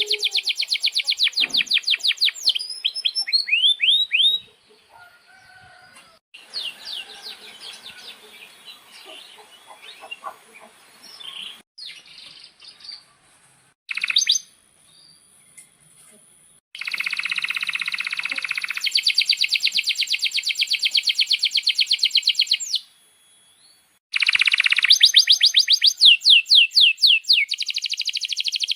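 Domestic canaries singing: long, fast rolling trills of rapidly repeated notes, chirps and quick sweeping notes, broken by a few abrupt stops and short pauses between passages.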